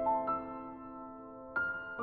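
Background music: slow piano notes ringing and fading, with a new chord struck about one and a half seconds in.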